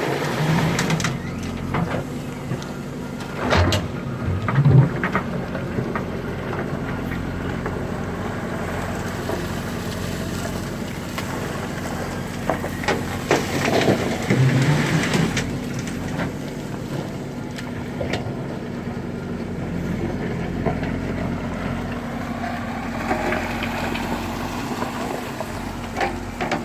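Backhoe loader's diesel engine running steadily, with loud clattering rushes of stone and gravel at the start, about four seconds in and again around thirteen to fifteen seconds in.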